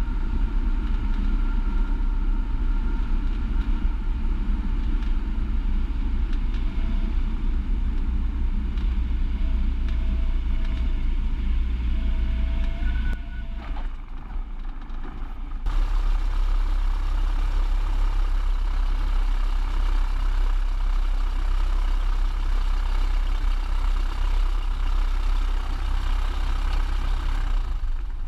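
Cabin noise of a single-engine Cessna's piston engine and propeller: a steady, loud drone during landing rollout and taxi. A few short beeping tones sound midway, typical of the stall warning horn chirping in the landing flare. The drone dips for about two seconds just past the middle, then returns.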